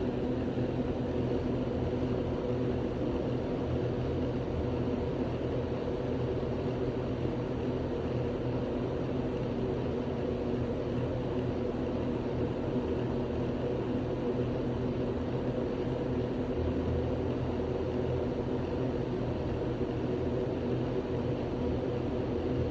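A steady mechanical drone with a low hum, holding the same level and pitch throughout.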